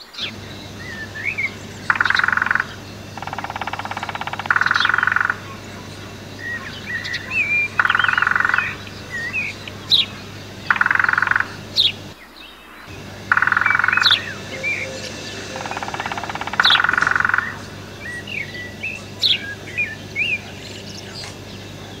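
Birds chirping with short rising whistles, over and over, broken by about seven buzzy rattling trills, each lasting about a second.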